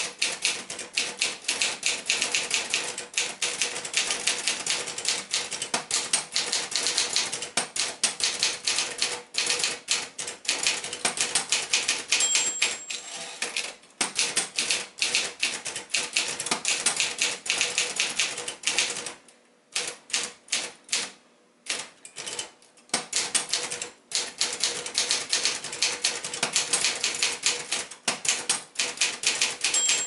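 Brother-built Sears Achiever manual portable typewriter being typed on: rapid runs of key and typebar strikes with a few short pauses. The margin bell dings twice, about twelve seconds in and again at the end as the carriage is returned.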